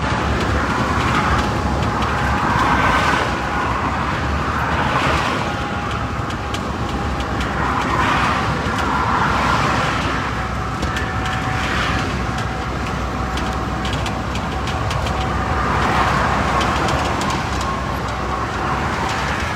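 Steady road traffic noise: motor vehicles running, with a continuous rumble, a faint steady tone and gentle swells every couple of seconds.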